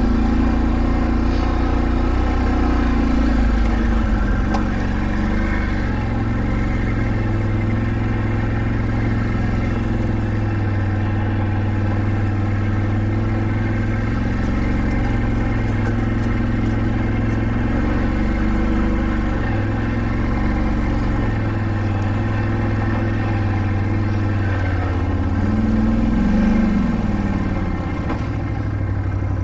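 Can-Am Outlander 570 ATV's V-twin engine running steadily at trail speed, its pitch wavering a little with the throttle, with a brief rise in revs near the end.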